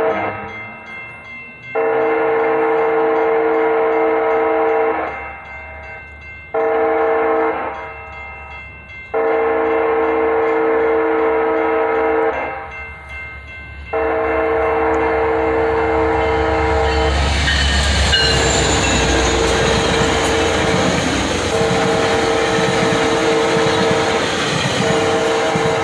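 A Sounder commuter train's horn sounding a run of steady blasts, long ones with one short one about a third of the way in, the warning sequence for the grade crossing. From about two-thirds of the way in the rumble and clatter of the train passing over the crossing joins it while the horn keeps sounding.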